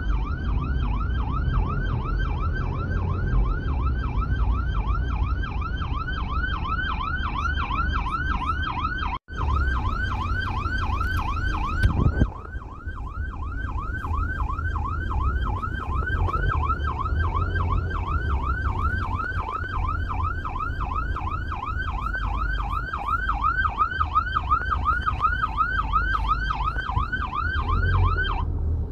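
Emergency vehicle siren on a fast yelp, about four rising-and-falling sweeps a second, over the low rumble of the vehicle driving. It cuts out for an instant about nine seconds in and stops just before the end.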